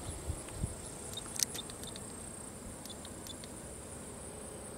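Insects trilling in a steady, high, pulsing chorus, with a few soft low thumps in the first second and a single sharp click about a second and a half in.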